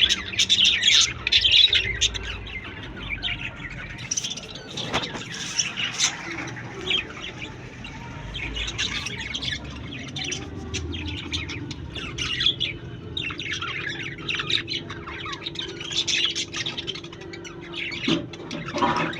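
A flock of budgerigars (Australian parakeets) chattering, with many rapid, overlapping chirps and squawks that are loudest in the first couple of seconds.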